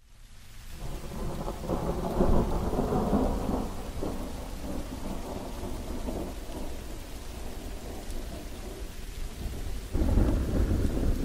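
Thunderstorm: rain with low rolling thunder, fading in at the start and swelling again with a fresh rumble about ten seconds in.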